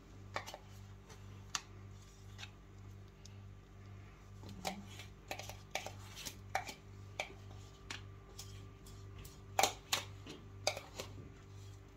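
Quiet kitchen room tone: a steady low hum that pulses about twice a second, with scattered light clicks and taps, two of them louder near the end.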